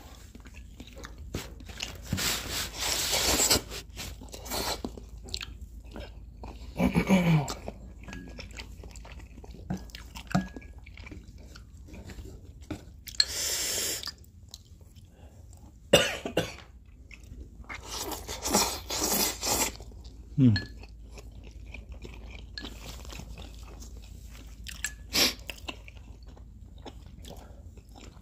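Close-miked eating: instant noodles slurped in several noisy pulls of a second or two each, between chewing and crunching of pan-fried green onion pancake and potstickers. A sharp knock about sixteen seconds in, and a couple of brief falling vocal sounds.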